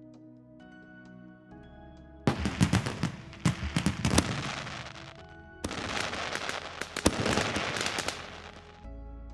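Fireworks sound effect: two rounds of sharp bangs and crackling, the first starting about two seconds in and the second just past the middle, over soft background music.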